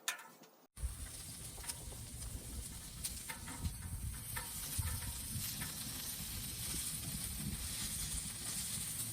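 Flounder sizzling as it grills: a steady hiss with scattered pops and crackles over a low rumble, starting after a brief cut about a second in.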